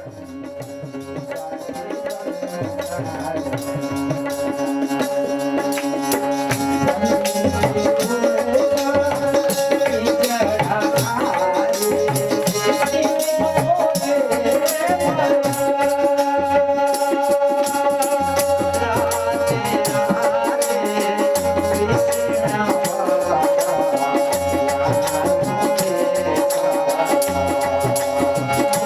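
Devotional bhajan music fading in: a hand drum and jingling rattle-like percussion over a sustained drone note, with a melody line that bends in pitch around the middle.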